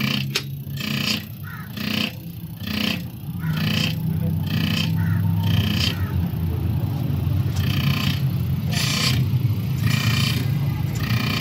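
Common rail injector being tested after a control-valve replacement: a steady motor hum with sharp, hissing pulses about twice a second, which thin out to a few scattered pulses after about six seconds.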